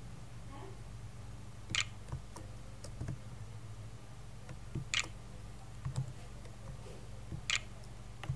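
Computer mouse clicks as letters are picked on an on-screen keyboard: three sharp clicks a few seconds apart, with fainter ticks between, over a low steady hum.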